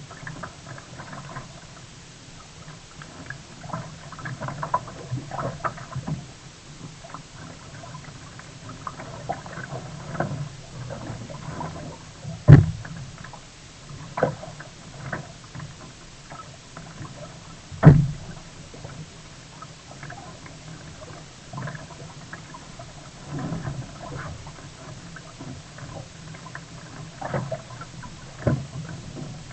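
Sea kayak on the water: irregular splashing and lapping of water around the paddle and hull, with two loud sharp knocks, one a little before halfway and one about two-thirds of the way through.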